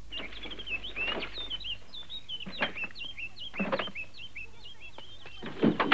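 Small birds chirping in a quick, continuous string of short high chirps, with a few soft thumps mixed in.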